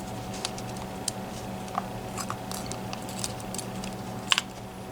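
Small scattered clicks and taps of a Mul-T-Lock MT5+ lock cylinder and tools being handled as it is taken apart, with a sharper double click about four seconds in. A steady low hum runs underneath.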